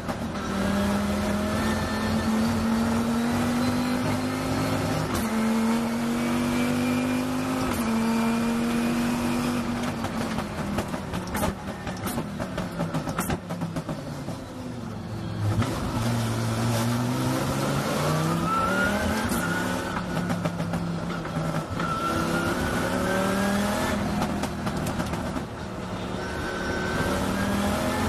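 Chrysler Viper GT3 race car's V10 engine heard from on board at full throttle, its pitch climbing through the gears with upshifts about five and eight seconds in. It then drops off as the car slows for a corner and climbs again as it accelerates hard, with further gear changes near the end.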